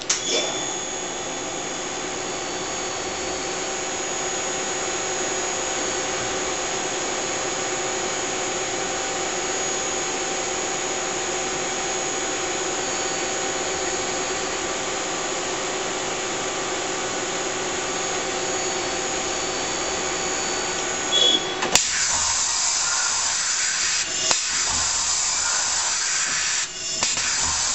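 Mazak ST-20 CNC mill-turn lathe running with a steady motor whine of several fixed tones over a hiss. The whine cuts off with a click about 22 seconds in, leaving a hiss with a couple of brief knocks.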